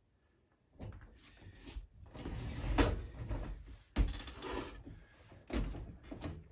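Knocks and scraping as an over-the-range microwave is shifted on its wall bracket against the cabinets. Several sharp knocks come through it, the loudest about four seconds in.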